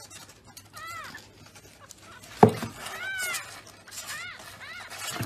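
A young kitten mewing: about four short, high-pitched mews, each rising then falling. A single sharp thump comes about two and a half seconds in.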